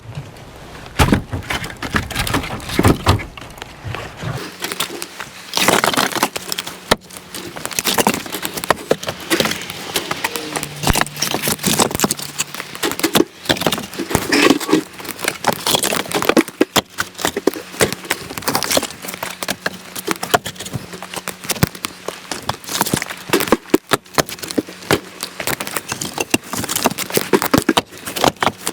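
Split firewood being handled: irregular hollow wooden knocks and clatter, many close together, as pieces strike one another.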